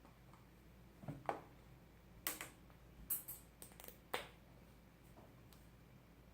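Slime being mixed after contact solution was added: a string of short, sharp sticky clicks and smacks, about nine of them, unevenly spaced.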